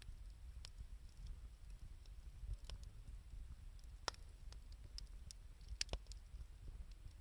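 Wood fire of scrap 2×4 lumber and scavenged wood crackling, with sharp, irregular pops and snaps over a low rumble. The loudest snaps come about four and six seconds in.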